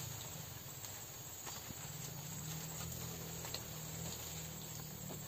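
Steady high-pitched chirring of insects, with a low steady hum underneath and a few faint knocks.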